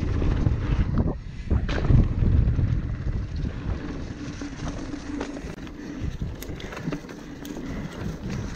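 2017 Ragley Blue Pig hardtail mountain bike ridden on a dirt trail: wind rushing over the microphone and a low rumble of tyres, with scattered knocks and rattles from the bike over the bumps.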